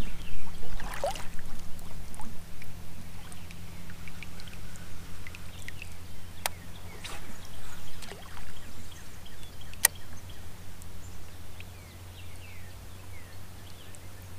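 Water lapping and trickling against a kayak hull, with two sharp clicks about six and ten seconds in. Under it runs a steady low hum.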